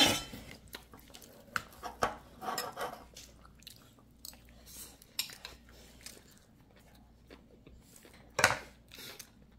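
A child eating from a bowl: a spoon clinking and scraping against the bowl, with soft chewing and mouth sounds. A sharper knock of the spoon on the bowl comes near the end.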